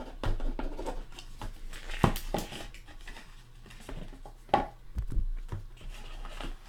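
Scattered light clicks and taps of sports cards and hard plastic graded-card slabs being handled, over a faint steady low hum.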